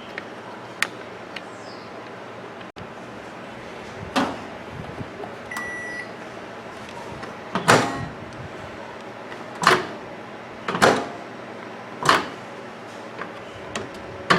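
Microwave oven door being shut again and again, its freshly reinstalled latch hooks clacking into the catch about five times, a second or two apart: the latch is locking again. A short beep about five and a half seconds in.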